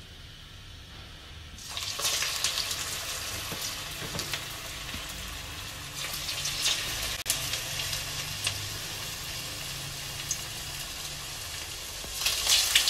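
Hot oil sizzling and crackling as potato-and-sago patties (aloo sabudana kababs) are lowered in one at a time for shallow frying on a medium-low flame. The sizzle starts about two seconds in and swells again near the end as another patty goes into the oil.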